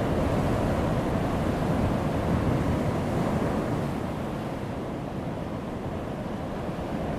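Heavy waves breaking on a rocky shore: a dense, continuous rush of surf that eases off a little about halfway through.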